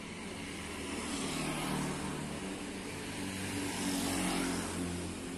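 Traffic passing on the street: a motor vehicle goes by about two seconds in, then a motor scooter passes close about four seconds in, its small engine humming over tyre noise on asphalt.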